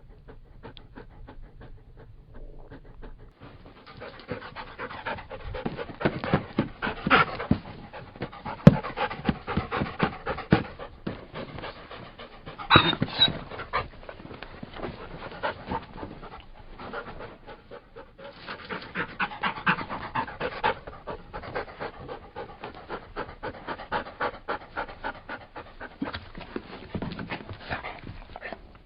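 Labrador Retriever panting in quick, even breaths, faint for the first few seconds and louder from about four seconds in, with a few stronger bursts.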